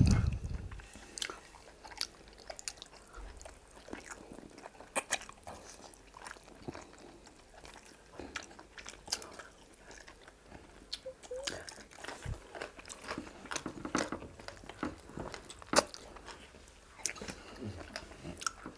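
Close-miked eating sounds of fufu and egusi soup: chewing and mouth noises, with many small scattered clicks and smacks. There is a low thump right at the start.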